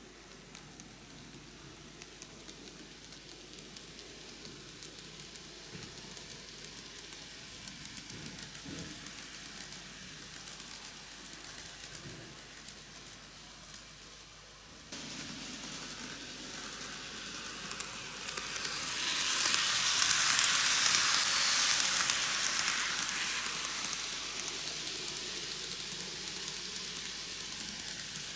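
N-gauge model of a Seibu 4000 series train running on curved model track: a steady hissing running noise of its small wheels on the rails. It steps up suddenly about halfway through, is loudest a little later, then eases off.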